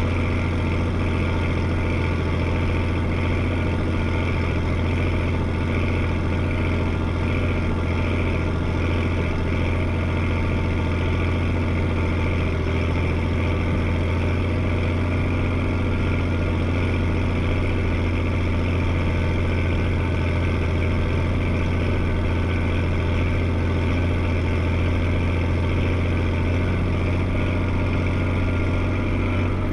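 Combine harvester's diesel engine running steadily at a constant speed, a deep drone with a steady hum above it.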